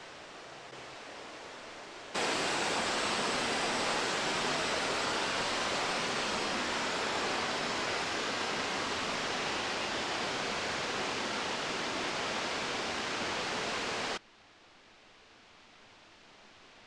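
Waterfall rushing: a loud, even wash of falling water that cuts in abruptly about two seconds in and cuts off just as abruptly near the end, with a much fainter outdoor hiss before and after.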